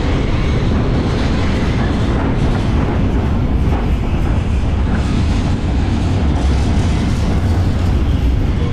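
Electric double-decker tram running along its track, heard from its roof: a steady low rumble of wheels on rail and running gear.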